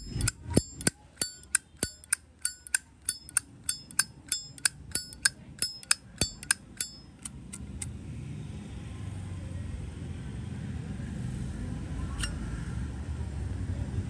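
Zippo lighter lid flicked open and snapped shut over and over: about twenty sharp metallic clicks, roughly three a second, each with a brief ringing tone. They stop about seven seconds in.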